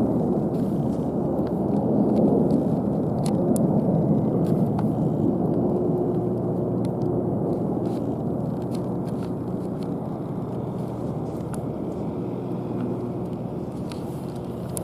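Military aircraft passing low overhead: a steady engine rumble that is loudest a few seconds in and then slowly fades as they move away.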